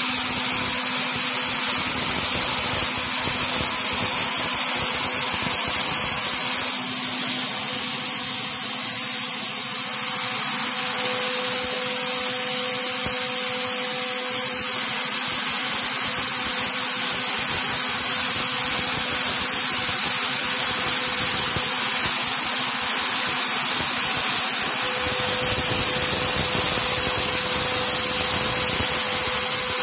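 CNC mill spindle running with the end mill cutting, under a steady loud hiss from the two blast nozzles aimed at the cutter, with a faint steady hum from the machine beneath.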